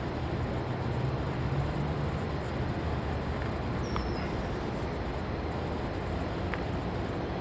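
Steady background noise of road traffic, with a vehicle's low engine hum louder for the first two seconds and a short high chirp about four seconds in.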